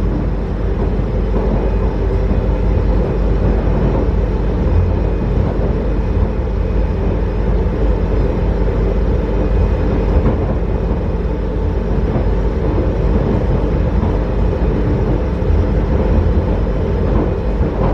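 MRT metro train running: a steady low rumble with a faint hum.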